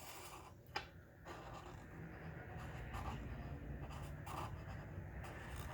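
Black Sharpie marker drawing strokes on paper, scratching in short repeated strokes, with a sharp click about a second in.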